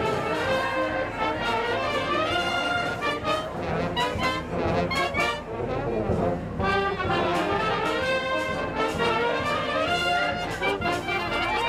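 Background music led by brass instruments, trumpets and trombones playing a melody over a steady accompaniment.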